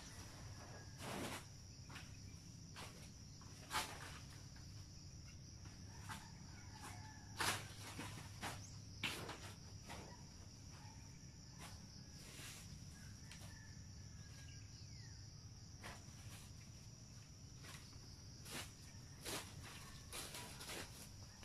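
A steady, faint, high-pitched insect chorus, with scattered sharp clicks and rustles breaking in a dozen or so times, the loudest near the start and the middle.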